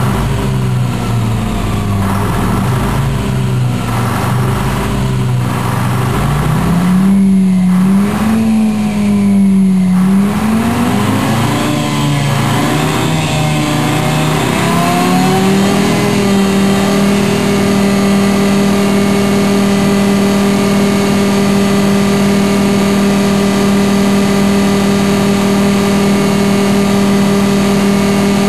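Detroit Diesel 4-53 two-stroke diesel engine revving up from a lower speed about six seconds in, surging up and down for several seconds, then holding a steady high pitch. The generator-mode governor is holding it at its high governed speed.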